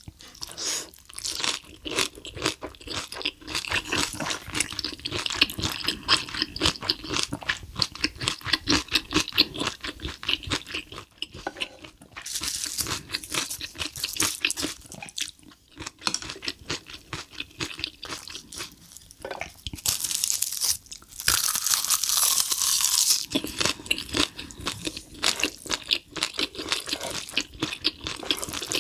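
Close-miked mukbang eating: wet chewing and crunching of a mouthful of spicy stir-fried cuttlefish wrapped in steamed cabbage, a dense run of small clicks and smacks. Twice, about twelve seconds in and again around twenty seconds in, the crunching turns louder and noisier for a few seconds.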